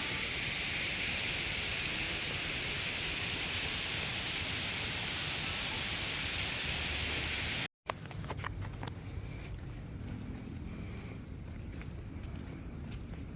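Steady rushing hiss that cuts off abruptly about two thirds of the way through. It is followed by quieter outdoor ambience with an insect chirping in a fast, even high-pitched pulse of about three chirps a second, and a few faint clicks.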